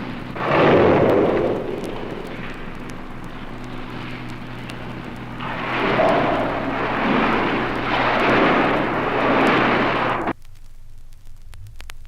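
Female hippopotamus snorting: a loud blast about half a second in, then a run of several more blasts from about six to ten seconds that cuts off suddenly. Vinyl surface clicks follow the cut-off, over a steady low hum.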